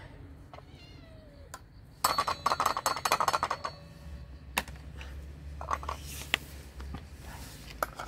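A metal spoon scraping and clicking rapidly against a tin can as canned cat food is dug out, loudest for about a second and a half near the middle. Cats meow briefly now and then around it.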